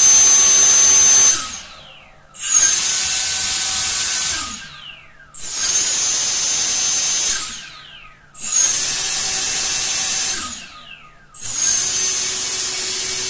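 Hexacopter's brushless motors and propellers run one after another at 20% throttle, each spinning for about two seconds with a steady high whine, then winding down in a falling tone. Five runs come about three seconds apart.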